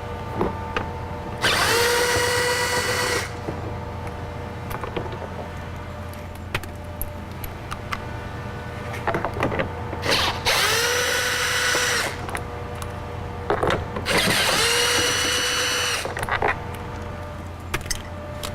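Cordless power driver with a 10 mm socket spinning out door-panel bolts: three short runs, each a quick rise to a steady whine lasting about a second and a half, with small clicks of the socket between them.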